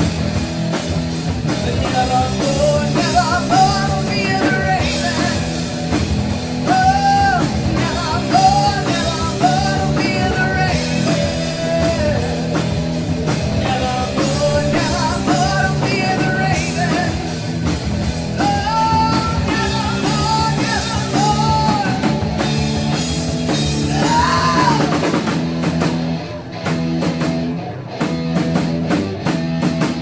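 Live rock band playing, with a woman singing the lead over drums, bass and guitar. Near the end the singing stops and the band plays short, separate hits with gaps between them.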